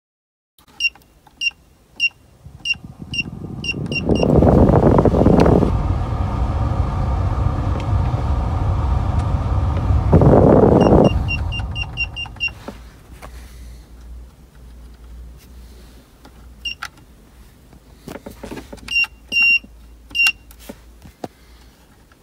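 Short electronic beeps, about two a second, as buttons are pressed on a car's hand-made climate-control unit. A loud rush of air from the cabin blower fan swells for several seconds and then dies away. More single beeps follow as its menu is scrolled.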